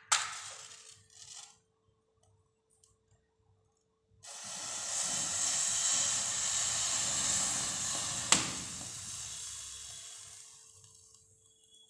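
A match struck on its box, then a few seconds later a tightly packed bundle of matchstick heads catches all at once with a loud rushing hiss. The hiss lasts about six seconds with one sharp crack partway through, then slowly dies away as the heads burn out.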